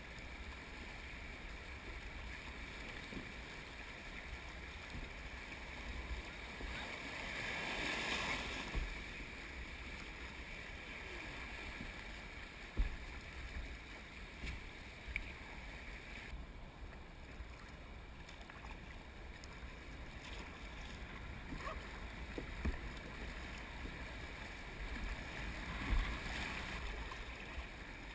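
Shallow river water rushing and splashing around a plastic sit-on-top kayak, swelling louder for a moment around eight seconds in, with a few sharp knocks and splashes of the paddle. Wind rumbles on the microphone throughout.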